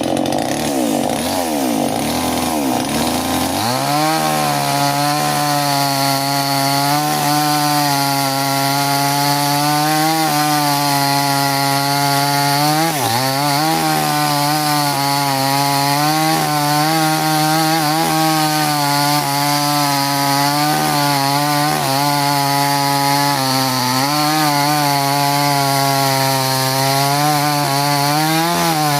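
Chainsaw engine revving with sliding pitch, then running steadily under load as it cuts wood. Its pitch wavers, with brief dips around the middle and again later.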